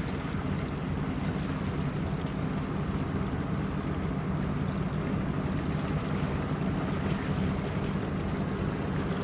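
Coastal cargo ship's diesel engine running with a steady low drone as the vessel passes, over a constant rush of water and wind.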